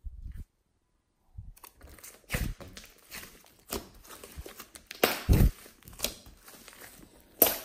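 Hands squishing, folding and pressing a thick lump of glossy slime, giving sticky crackling and squelching noises in irregular bursts. A brief silence near the start, and the loudest squishes come about five seconds in and near the end.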